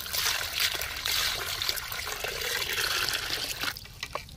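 A stream of water pouring into a metal kadhai full of shelled snail meat while hands rub and swish it clean, a wash to rinse off grit. The pouring cuts off near the end.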